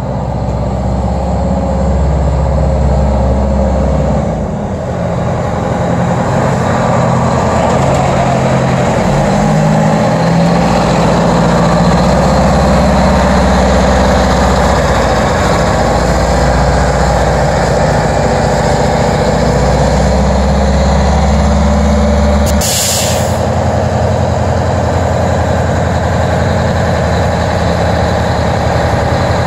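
Heavy fire-rescue truck's diesel engine running as it moves slowly, its pitch rising and falling. About three-quarters of the way through, a short sharp hiss of air brakes, after which the engine runs on steadily at idle.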